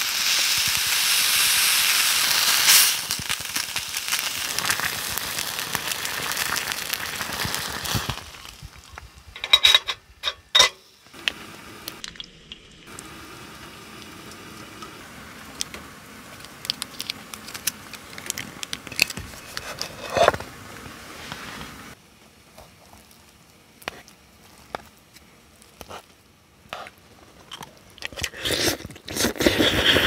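Pot of sauce on a canister gas stove: a loud crackling sizzle and hiss that cuts off about eight seconds in. Scattered clicks and clinks of utensils on metal dishes follow.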